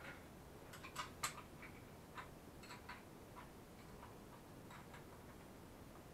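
Faint, scattered light clicks and taps, with a quick cluster of the sharpest about a second in and a few softer ones after, over quiet room tone.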